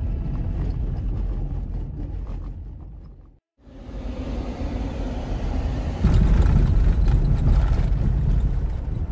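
Car driving, a low rumble of engine and tyres heard from inside the cabin. It fades out about three and a half seconds in, fades back in, and gets louder about six seconds in as the car runs on a dirt track.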